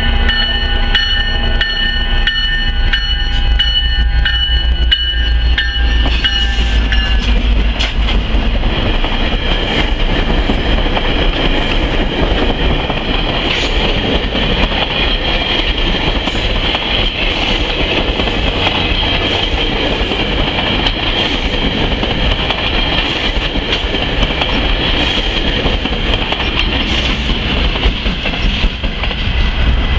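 GO Transit commuter train of bilevel coaches pushed by an F59PH diesel locomotive, rushing past close by with wheels clicking over the rail joints. For the first seven seconds or so, level-crossing warning bells ring with steady high tones over the approaching train.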